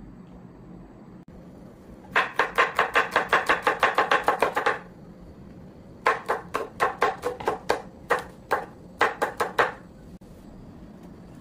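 Chef's knife chopping shallots and green chillies on a bamboo cutting board. It goes in a fast run of sharp knocks, about seven a second, for nearly three seconds, then after a pause comes more chopping in shorter runs.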